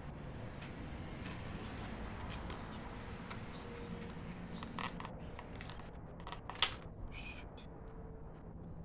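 Scattered small clicks and handling sounds from loading BB airguns, with one sharp click about two-thirds through, over a steady low background hiss.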